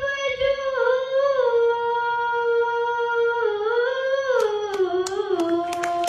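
A young woman's solo voice singing a naat unaccompanied into a microphone, holding one long note with no words that sways gently in pitch, then steps down lower about four seconds in. A few sharp clicks sound near the end.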